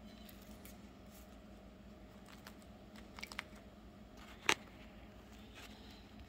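A few light clicks and taps of handling at the table, the sharpest about four and a half seconds in, over a faint steady hum.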